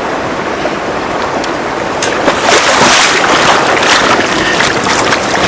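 River water rushing and splashing close to the microphone. It grows louder about two seconds in, with splashing from wading in the shallows.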